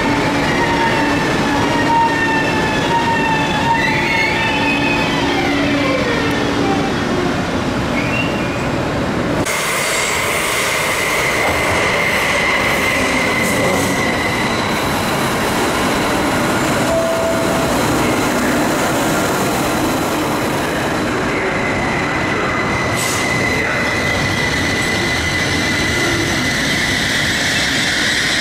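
Electric passenger trains moving through an underground station. The first train's electric motors whine in several steady tones, some of them dropping in pitch. About nine seconds in, the sound changes abruptly to a steady high-pitched whine and wheel squeal from a red commuter train rolling along the platform.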